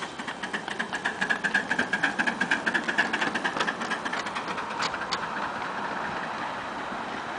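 Miniature live-steam locomotive passing with its train, its exhaust beating rapidly at about five or six beats a second, loudest a couple of seconds in and then fading as the riding cars and wagons roll by on the track.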